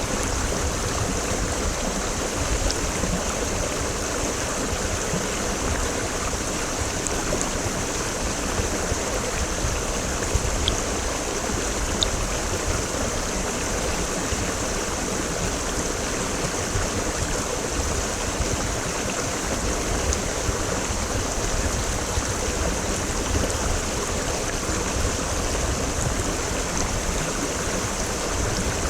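Creek water flowing steadily: a continuous, even rushing of a mountain stream.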